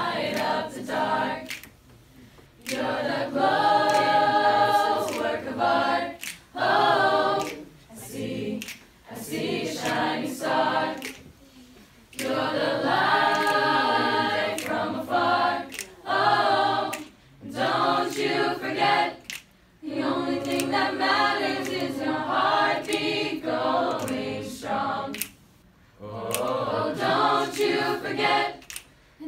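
Mixed high-school choir of male and female voices singing a cappella, held chords sung in phrases with short pauses between.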